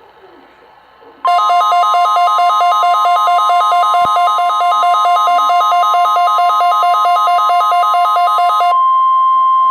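NOAA Weather Radio warning alarm: a loud steady electronic tone with a fast, shrill two-note warble over it, sounding as a weather radio receiver is set off by the weekly test. The warble stops near the end, and the steady alarm tone carries on alone.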